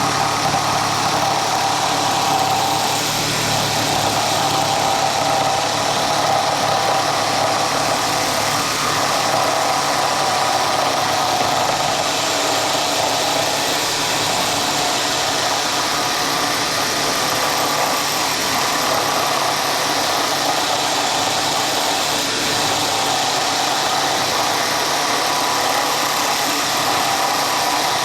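Woodworking power tool's electric motor running steadily, a constant hum over a loud hiss with no pauses.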